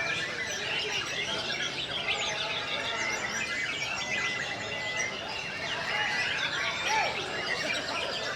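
Many white-rumped shamas (murai batu) singing at once in a songbird contest: a dense, steady overlap of whistles, chirps and trills from several birds.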